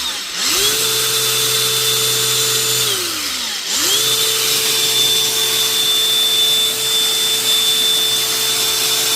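DeWalt DCG405 brushless cordless angle grinder test-run after its switch repair, running freely with no load. It spins up with a rising whine, runs steadily for about three seconds and winds down, then spins up again and runs steadily for about six seconds. The switch is starting and stopping the motor properly again.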